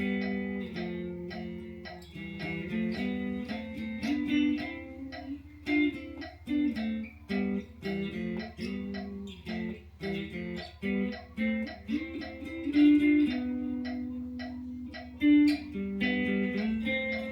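Guitar being practised, picked note by note in short single-note phrases that come round again, with a steady low hum underneath.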